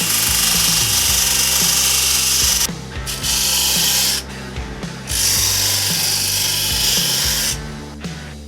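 A power tool running in bursts, a loud even whirring hiss that cuts out briefly twice and stops near the end. Background music with a steady beat plays underneath.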